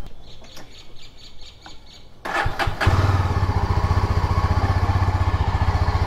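A motorcycle engine is started a little over two seconds in, cranking briefly before it catches. It then settles into a steady, even idle. A few faint clicks come before the start.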